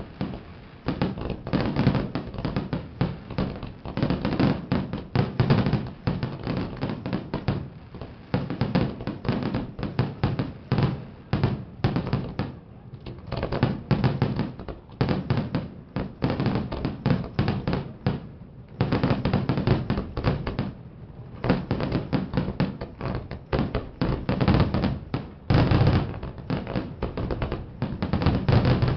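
Fireworks display bursting in a dense, continuous barrage of bangs and crackles near the end of the show, with a few brief lulls.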